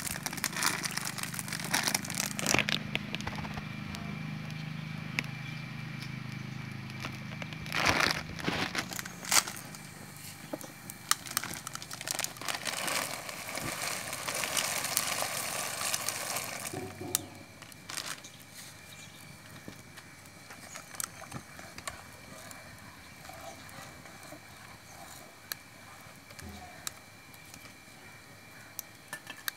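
Wood fire crackling and popping under a pot of boiling water, with the water bubbling. A low steady hum fades out within the first several seconds, and the bubbling is louder around the middle.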